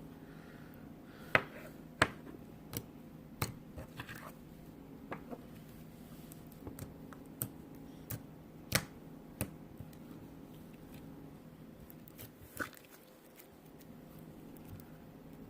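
Slime being squeezed and poked, giving sharp irregular clicks and pops, about a dozen spread unevenly, over a steady low hum.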